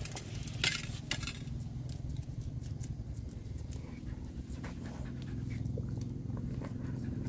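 A dog taking a pork bone from a steel bowl and gnawing it: two sharp clinks of bone on the metal bowl about a second in, then smaller clicks of teeth on the bone, over a steady low hum.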